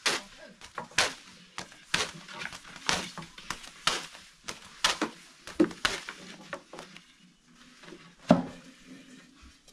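Thin wooden rolling pins knocking against low round wooden boards as lavash dough is rolled out and lifted, about one sharp knock a second, with the loudest single knock near the end.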